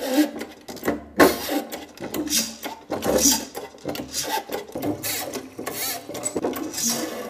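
Hand-operated hydraulic pressure test pump worked by its lever, a repeated noisy mechanical stroke about once a second. The pump is raising a water pipework system to its 4.5 bar test pressure.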